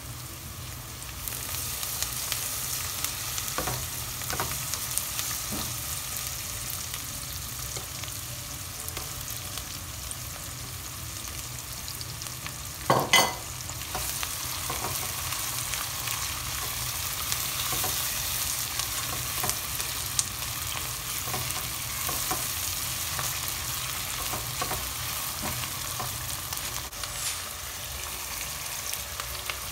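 Sliced onions sizzling steadily in hot oil in a non-stick pan, with a spatula stirring and scraping through them. There is one louder clatter about halfway through.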